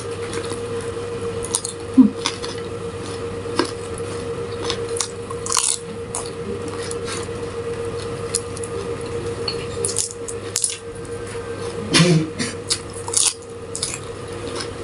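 Kitchen utensils clinking and tapping against dishes and bowls during food preparation: scattered short clinks, the loudest about two seconds in and again near twelve seconds, over a steady low hum.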